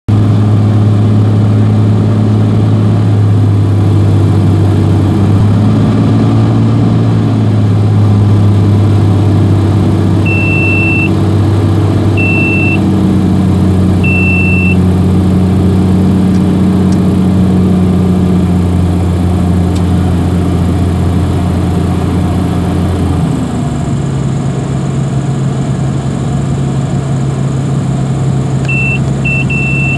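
Cockpit sound of a single-engine light aircraft's piston engine and propeller, a loud steady drone that drops to a lower note about three quarters of the way through as power is pulled back on final approach for landing. Short high beeps sound three times around the middle and in a quick run near the end.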